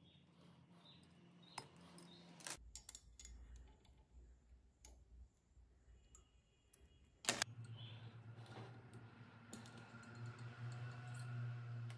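Faint, scattered small clicks and taps of a thin coated wire being handled and wrapped around a steel rod held in a bench vise, over a low background hum.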